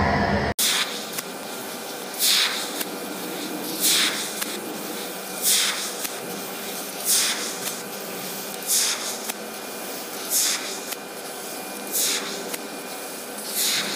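CNC laser cutter cutting steel plate: a steady hiss of assist gas broken by short, sharp bursts of louder hissing about every second and a half. It opens with a brief louder machine sound that cuts off abruptly about half a second in.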